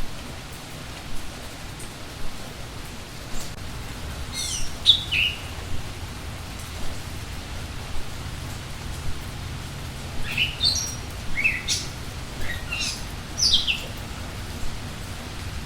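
Steady rain with birds chirping over it: a few quick high chirps that fall in pitch about four seconds in, then a longer run of falling chirps from about ten to fourteen seconds in.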